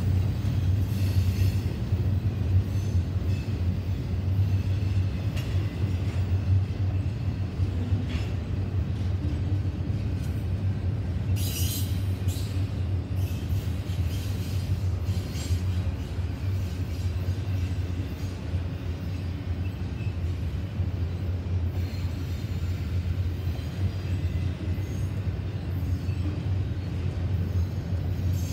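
Norfolk Southern double-stack intermodal freight train passing at steady speed: a continuous low rumble of the cars rolling on the rails. A brief high-pitched wheel squeal comes about twelve seconds in.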